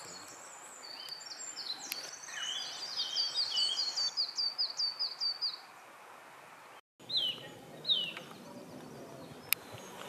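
Several small songbirds singing over each other, led by a fast run of high, down-slurred whistled notes, about four a second, that stops about halfway through. After a momentary dropout come two single down-slurred calls, then a sharp click near the end.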